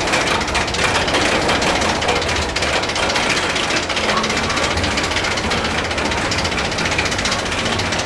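Amusement-ride machinery giving a loud, steady, rapid mechanical clatter.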